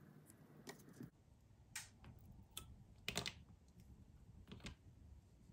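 Faint, irregular clicks and light taps, about half a dozen, the loudest a little past three seconds in: small metal watchmaking tools handling parts of a watch movement on the bench.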